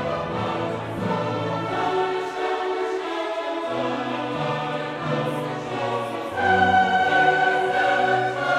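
Background music: a choir singing held notes over an orchestra, swelling louder about six and a half seconds in.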